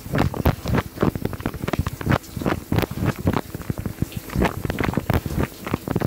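Water from the spray arms of a Miele G 2225 SCi dishwasher splashing against the racks in uneven surges several times a second, heard from inside the wash chamber during a wash cycle.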